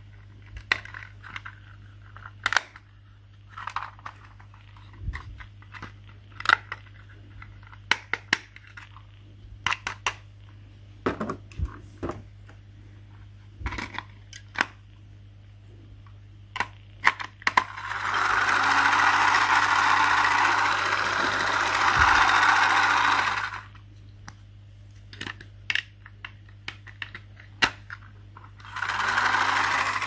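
Clicks and knocks of hard plastic being handled around a toy sewing machine's battery compartment, then the toy's small battery motor runs steadily for about six seconds, stops, and starts running again near the end.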